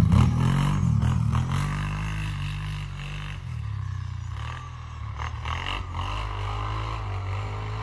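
Kawasaki Brute Force 750 ATV's V-twin engine revving, its pitch rising and falling with the throttle as it pulls away across snow. It fades over the first few seconds as the quad moves off, then holds at a lower level.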